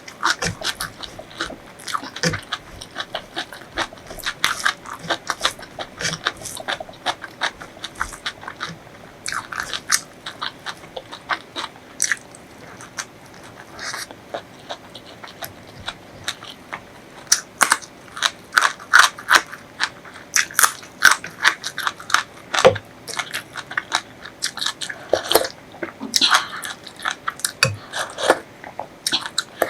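A person chewing and crunching food close to the microphone, with many rapid crisp crunches that come thickest a little past the middle.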